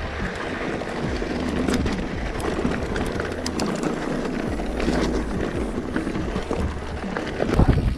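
Mountain bike riding, heard through a camera mounted on the bike: a steady rolling and rumbling noise with scattered rattles and clicks from the bike. The low rumble grows louder near the end.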